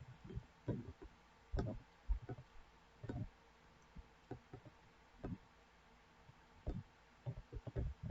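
Faint, irregular soft clicks and low knocks, a dozen or so scattered over several seconds.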